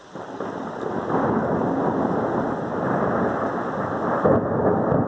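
Thunder from a close lightning strike, swelling over the first second and rumbling on steadily.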